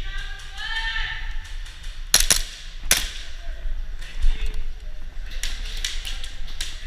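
Airsoft guns firing: two loud sharp snaps about two and three seconds in, then a quick run of lighter snaps near the end. A voice calls out briefly at the start.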